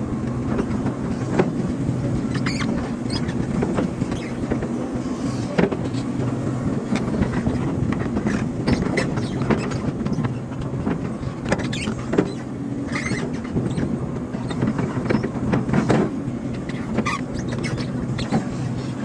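Hydraulic excavator running: a steady engine drone with frequent knocks and clanks and a few short squeaks.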